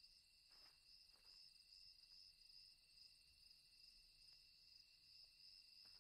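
Faint, steady chorus of crickets: two high trills at different pitches running without a break, with two faint ticks in the first second and a half.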